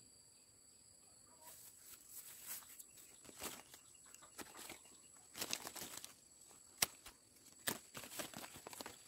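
Irregular rustling and crackling starting about a second and a half in, with two sharp snaps near the end.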